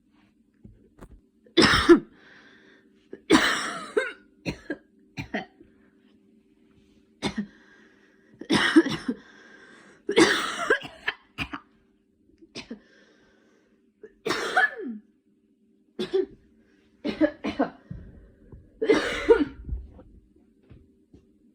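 A young woman sick with a cold coughing repeatedly: more than a dozen short, sharp coughs, some single and some in quick pairs, spread through a drawn-out coughing attack.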